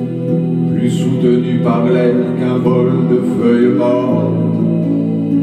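A man singing a slow French song over guitar chords, the sung line gliding above steady held notes, with a change of chord about four seconds in.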